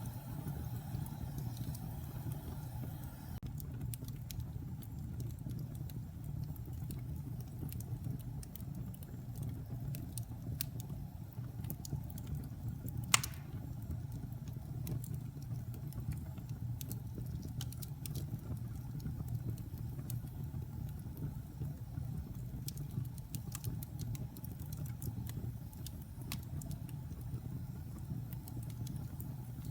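Wood fire burning in a fireplace: a steady low rumble of flames with scattered crackles, and one sharp, much louder pop about thirteen seconds in.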